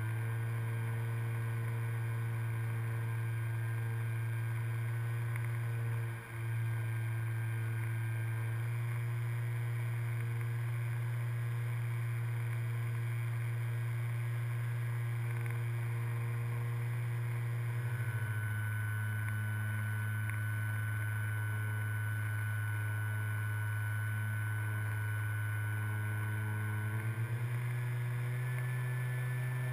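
Electric motor and propeller of an RC model airplane, heard from its onboard camera, running as a steady, even hum. Its pitch shifts slightly a few times as the throttle changes, and the sound dips briefly about six seconds in.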